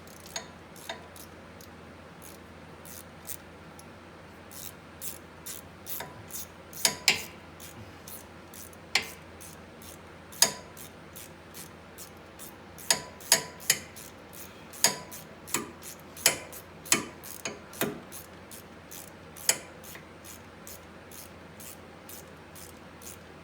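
Hand ratchet with a 12 mm socket clicking as it tightens brake caliper bolts. The clicks come one at a time at an uneven pace, some much louder than others.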